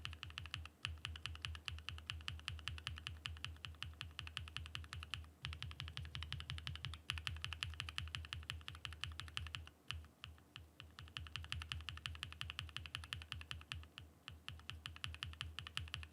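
Mechanical keyboard switches being typed on rapidly: a dense, fast stream of deep keystroke clacks, with brief pauses about five, ten and fourteen seconds in.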